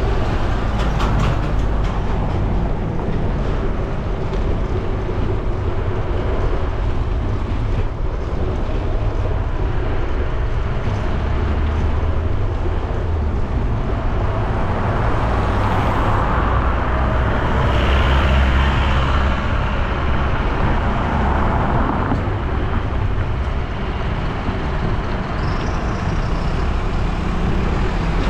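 Road traffic passing alongside a moving bicycle, a steady noisy wash with a strong low rumble that swells louder through the middle.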